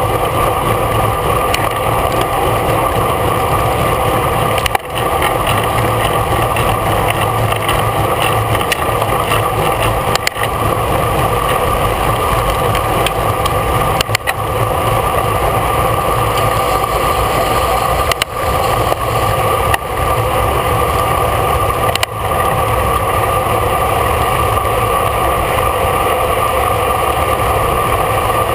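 Steady loud wind rushing over the camera microphone of a bicycle riding at race speed, mixed with tyre and road rumble, with a few brief dips in level.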